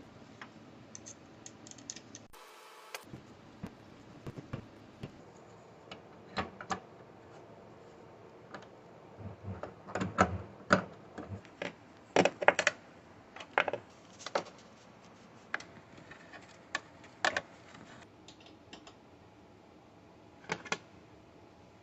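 Irregular clicks, taps and knocks of parts being handled on a Glowforge laser cutter during a carriage plate belt replacement. They are loudest and most frequent in a cluster about ten to thirteen seconds in.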